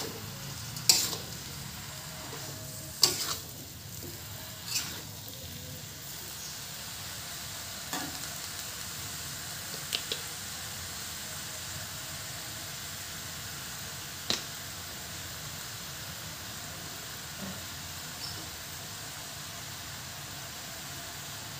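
Napa cabbage stir-frying in a wok with a steady sizzle. A metal spatula scrapes and clanks against the pan a few times in the first five seconds, then knocks a few more times, singly and further apart.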